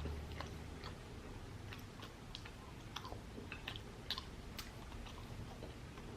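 Close-miked chewing of chicken biryani: irregular wet mouth clicks and smacks, several a second.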